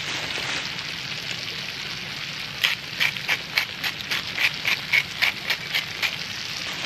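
Flounder and eggs frying in butter in a pan, sizzling steadily. About two and a half seconds in, a hand seasoning grinder starts clicking over the pan, about three to four clicks a second for a few seconds.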